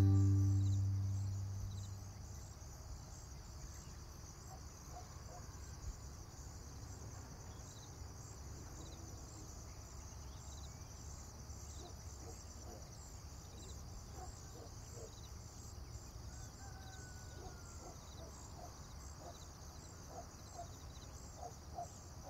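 Music fading out over the first two seconds, then faint outdoor ambience: a steady high-pitched drone with a fast flutter, and scattered faint bird chirps.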